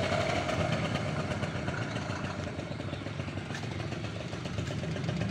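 2001 Asiastar 50cc two-stroke automatic scooter engine idling steadily, running smoothly.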